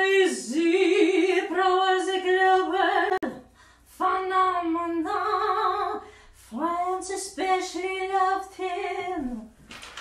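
A woman's voice singing a cappella, long held notes with vibrato in three phrases separated by short breaths.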